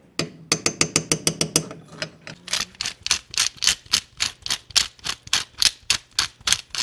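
Handheld glass spice grinder twisted to grind pepper into a saucepan: a quick run of dry clicks, about five a second, which gets louder and more even from about two and a half seconds in.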